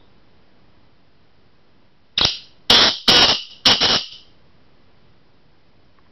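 Black francolin calling: a series of four loud, harsh, high-pitched notes in quick succession, starting about two seconds in and over within two seconds.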